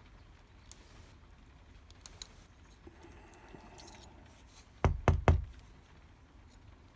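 Small metal clicks and light rattles of lock parts and tools being handled while the pins are taken out of a Cisa lock, then three quick, loud knocks close together about five seconds in.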